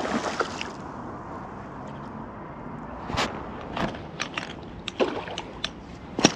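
A hooked perch splashing at the water's surface at the start, then a run of sharp knocks and clatters as a landing net is picked up and handled, the loudest knock near the end.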